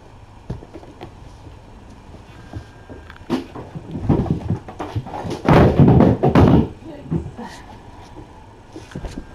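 A close cluster of thumps, knocks and rustling as a person moves right in front of the microphone: footsteps and clothing brushing near it. The noise builds about three seconds in, is loudest in the middle and dies away about seven seconds in.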